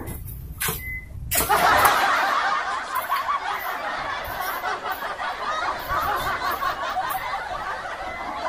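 A crowd laughing and chuckling, many voices at once like a comedy laugh track. It starts about a second and a half in, is loudest at first, then eases a little and carries on.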